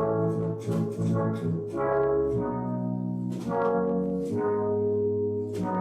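Yamaha DX7 FM synthesizer, just repaired and being tried out, playing a series of held chords on a brass-like patch, the chord changing every second or so.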